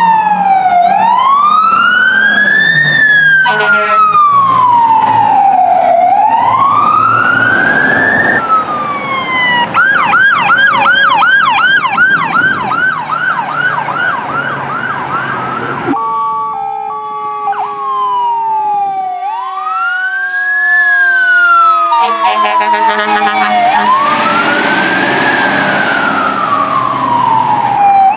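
Fire apparatus sirens across several quick cuts. First a slow wail rising and falling about every three seconds, broken by a short horn blast about four seconds in. Then a fast warbling yelp, and then the slow wail again, with other steady tones sliding slowly down in pitch.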